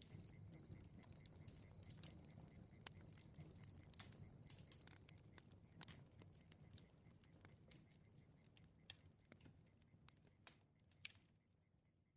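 Faint crackling campfire: scattered sharp pops over a low rumble of flames. Insects chirp in short, evenly repeated high trills. The whole ambience fades out over the last few seconds.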